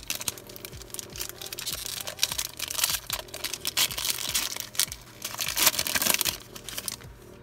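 Shiny foil wrapper of a Mosaic football trading-card pack crinkling and tearing as it is ripped open by hand, in a dense crackle with two louder spells, stopping shortly before the end.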